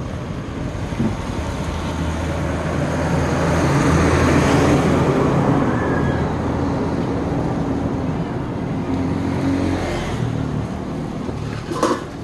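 A motor vehicle's engine passing close by, its sound building to its loudest about four seconds in and then slowly fading, with a short sharp clatter near the end.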